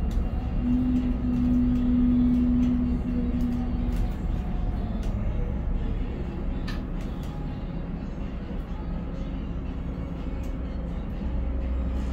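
Container crane machinery heard from inside the operator's cab as the trolley and hoist drives run: a steady machine hum carrying a strong tone for the first few seconds, a tone dropping in pitch around five seconds in, and scattered clicks and rattles from the cab.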